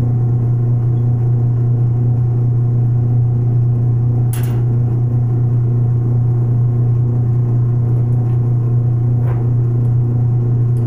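Benchtop metal lathe running with its chuck spinning, a steady low hum from the motor and spindle. A sharp click comes about four seconds in and a fainter one about nine seconds in.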